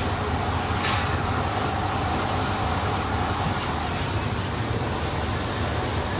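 Steady rushing rumble of a large building fire burning, with one brief sharp crackle about a second in.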